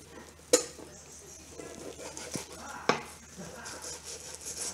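A blunt knife cutting and scraping through a flathead fillet on a cutting board: faint scraping with two sharp knocks on the board, about half a second in and again near three seconds.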